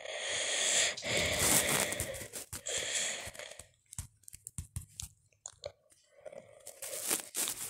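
Crackling, rustling handling noise close to a phone's microphone. From about four seconds in comes a fast run of short sharp taps from typing on the touchscreen keyboard.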